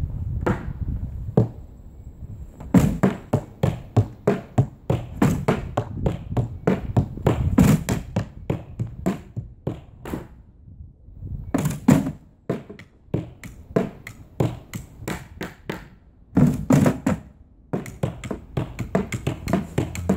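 A child drumming with sticks on an improvised kit of plastic sleds and a round plastic lid: fast runs of thunks and taps, broken by a couple of short pauses.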